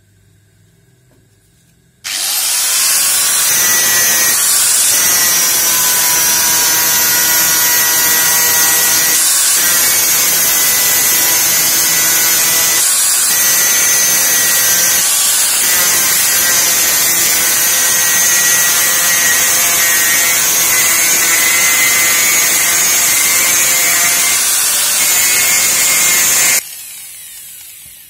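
Handheld power tool grinding out the inside of a fan blade's hub hole so that the motor shaft fits deeper. It starts suddenly about two seconds in, runs steadily with a loud high hiss, then switches off and spins down near the end.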